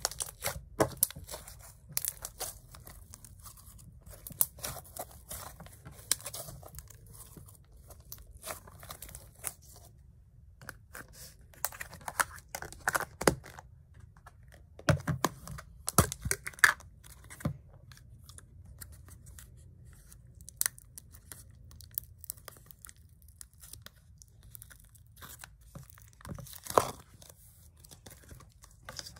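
Slime being squeezed, pressed and pulled by hand, giving irregular crackling, tearing and popping sounds that come in clusters with short pauses between.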